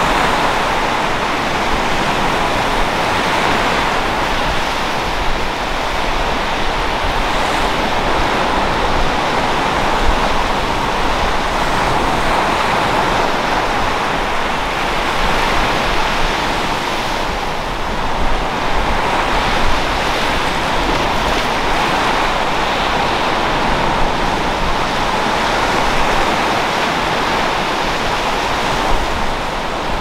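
Gentle Caribbean surf washing onto a sand beach: a steady hiss of small breaking waves that swells and eases every few seconds.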